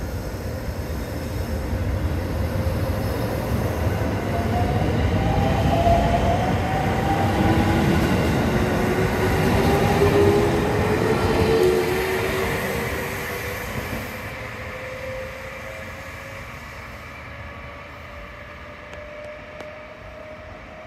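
JR Central 313 series 0-subseries electric multiple unit departing: the traction motors give a whine that rises in pitch as the train gathers speed, over the rumble of the cars rolling past. The sound is loudest in the middle as the cars pass close, then fades as the train draws away.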